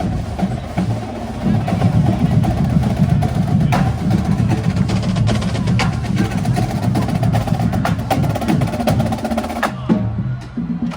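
Marching band drums playing, with many sharp snare and rim strikes over a dense low drum sound. It drops off sharply about ten seconds in.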